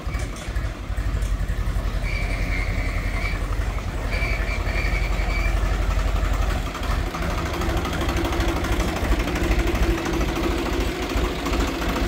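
Swaraj 735 FE tractor's three-cylinder diesel engine running with a steady low chugging as it tows a trailer loaded with gravel, the sound dipping briefly about seven seconds in.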